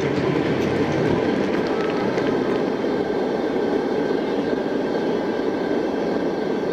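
Portable gas heater burning, its burner giving a steady rushing roar.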